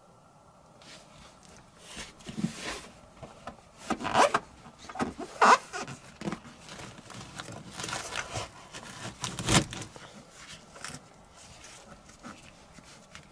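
Foil-faced butyl sound-deadening mat (Kilmat) crinkling and rustling as it is pressed and smoothed down by hand, with a few louder crackles in the middle.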